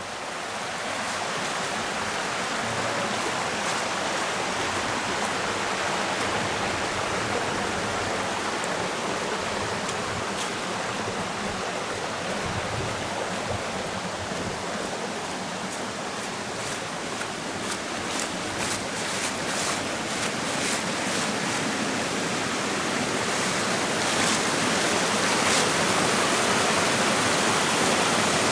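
Steady rush of flowing river water, growing louder towards the end as the waterfall comes nearer.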